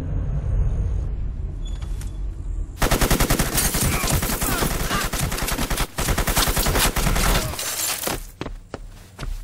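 After a low rumble, a long volley of rapid automatic gunfire starts about three seconds in and runs for some four and a half seconds. It breaks off into a few scattered single shots near the end.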